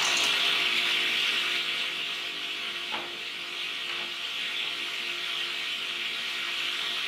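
Sliding table panel saw running without cutting: a steady whir and airy hiss. There is a light knock about three seconds in.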